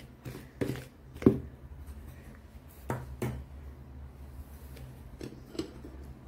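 A spoon stirring dry flour in a plastic mixing bowl, with several light knocks against the bowl, over a low steady hum.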